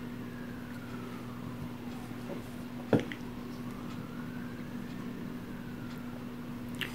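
Steady low electrical hum with a faint whine that slowly rises and falls, broken by one sharp click about three seconds in and a smaller click near the end, as the plastic miniatures and their packaging are handled.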